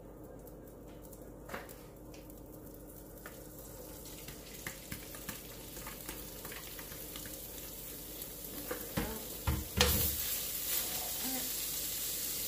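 Taco meat sizzling in a frying pan, with scattered clicks of a stirring utensil. A few knocks come about nine to ten seconds in, the loudest near ten seconds, and after them the sizzling is louder and steady.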